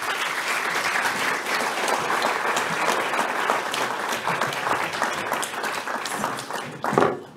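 Audience applauding, a steady dense clatter of many hands clapping that dies away near the end.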